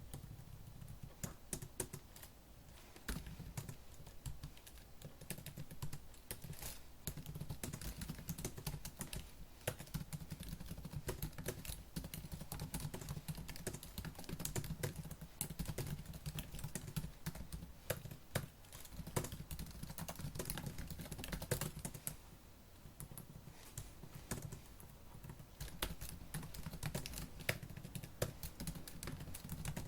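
Fast typing on a laptop keyboard: a dense, continuous run of key clicks, with a short pause about three-quarters of the way through.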